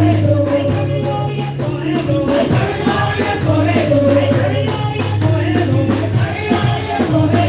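Upbeat makossa-style gospel praise music: a steady bass line, a wavering melodic lead and jingling hand percussion keeping an even beat.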